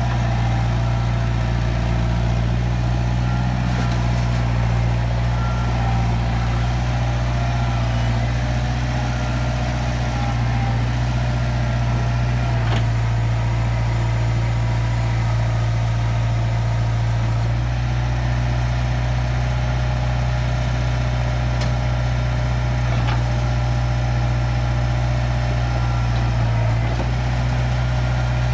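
International (IH) backhoe-loader's diesel engine running at a steady speed, its note shifting slightly a few times as it takes load.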